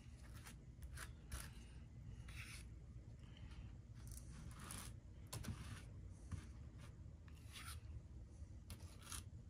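A metal palette knife scraping and smearing thick white paste over a rock-wall form in a series of short, faint strokes, about a dozen in all.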